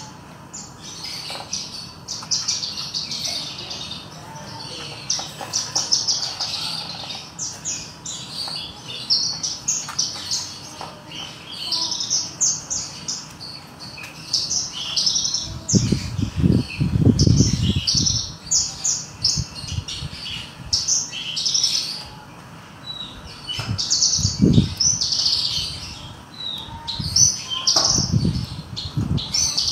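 Caged Javan bushlark (branjangan, parva form) singing a rapid, unbroken stream of high chirps and trills. A few low rumbling thuds break in around halfway and again near the end.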